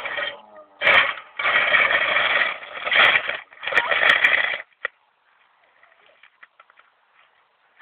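Broom scraping mud and stones across an asphalt road in about four rough sweeping strokes, then only faint scattered scratching.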